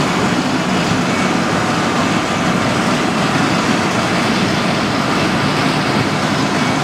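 Waste-to-oil pyrolysis plant machinery running, a steady mechanical hum with a constant rushing noise over it.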